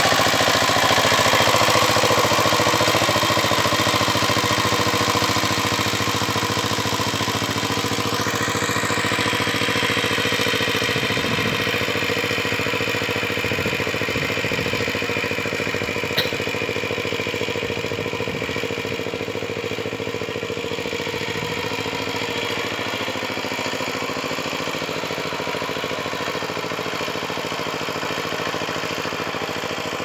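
Kubota power tiller's engine running steadily while ploughing a rice field, slowly growing fainter. A single sharp click comes about halfway through.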